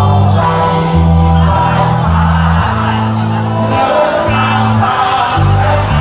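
A live rock band playing through a concert PA: bass notes stepping under keyboard and acoustic guitar, with a lead vocal over the top. A cymbal crash lands right at the start.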